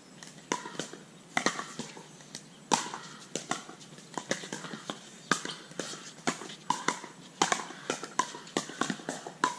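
Pickleball rally: sharp, ringing pops of paddles striking the plastic ball, mixed with the ball's bounces on the hard court, a dozen or more impacts that come quicker toward the end.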